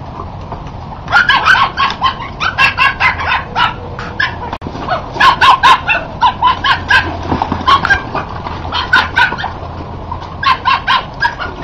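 Duck quacking in rapid runs of short, loud calls, several a second, in a few bursts with brief pauses between.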